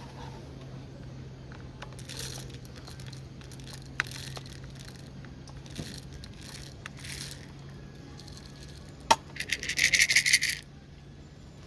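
Small hard objects being handled, with scraping and a sharp click, then a loud rapid clattering rattle lasting over a second near the end, like metal gear or utensils jangling.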